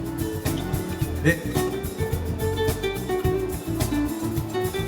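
Background music with plucked guitar notes and a steady beat.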